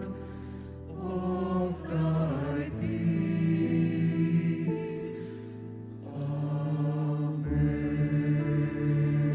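Mixed choir singing long, held chords on the closing 'Amen', the chords shifting every second or two, with a brief hiss about five seconds in.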